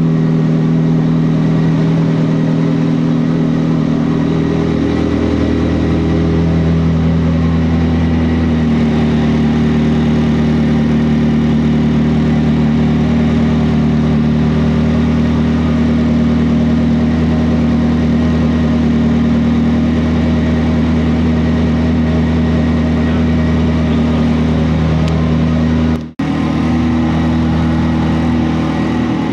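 Car engine idling steadily, with a brief cut-out near the end.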